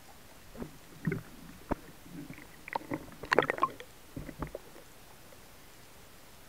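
Muffled underwater knocks, clicks and gurgles, irregular and bunched about three seconds in, from a speared fish struggling at the speargun while the diver grabs it by the head.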